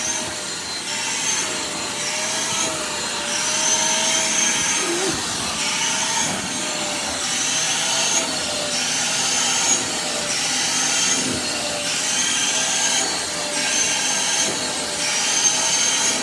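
Vacuum cleaner running steadily on a dog's coat, its motor tone wavering slightly, with a hiss that swells and fades about once a second as the nozzle is drawn through the loose fur.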